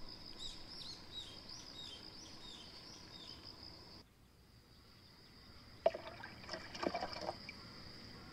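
A container of water and young silver crucian carp being tipped into a clear acrylic tank: a sharp knock, then about a second and a half of splashing water. Before that, insects trill steadily and a bird chirps in short, quick repeats.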